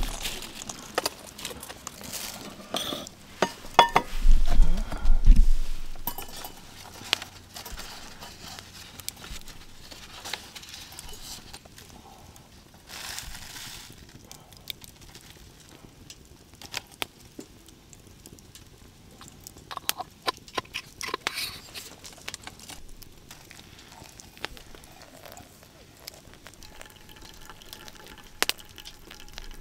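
Small handling sounds of pour-over coffee being made: scattered clicks and clinks of a stainless mug, a wire coffee dripper and a glass cup, with a heavy low bump about four to five seconds in. Near the end, a thin stream of hot water is poured from a kettle onto the coffee grounds in a paper filter.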